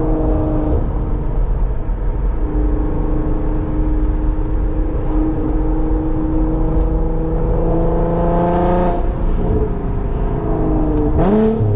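Infiniti Q50's engine and loud aftermarket-sounding exhaust under way, heard from inside the car: the engine note climbs slowly for several seconds, drops suddenly about nine seconds in, then steadies again.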